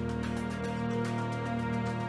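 Background score music: several sustained notes held at a steady level, with a faint ticking pulse over them.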